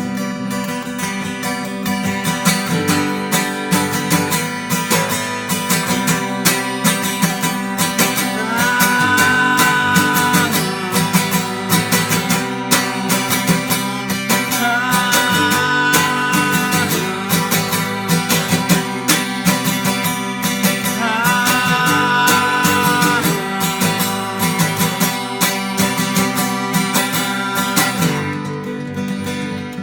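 Strummed guitar music playing steadily, with a higher held melody line coming in three times.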